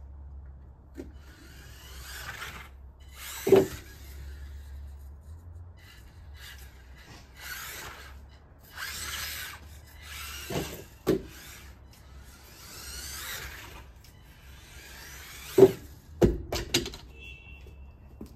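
Losi Micro-B micro RC buggy's electric motor whining in short bursts as it speeds up and slows down, its tyres skidding on wet deck boards. Sharp knocks come as it hits things, the loudest about three seconds in and near the end.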